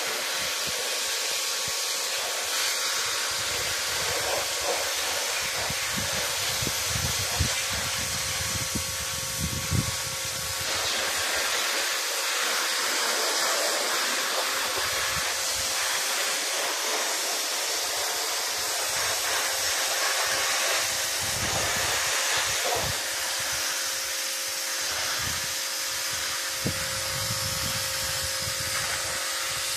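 Pressure washer spraying: a steady hiss of the water jet hitting the slats of a wooden garden table, over a faint steady whine.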